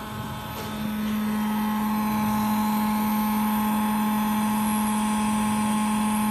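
Portable induction heater running under load with a steady electrical hum of a few fixed tones. The hum grows louder about a second in as the power knob is turned up, because the power delivered to the copper tube was too low.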